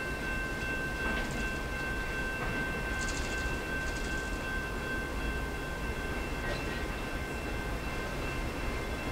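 Canadian National freight train rolling across a steel railroad bridge at a distance: a steady low rumble with several steady high ringing tones over it.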